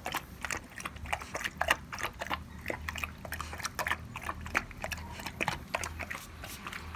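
Rottweiler puppy eating dry kibble from a stainless steel bowl: quick, irregular crunches as it chews, several a second.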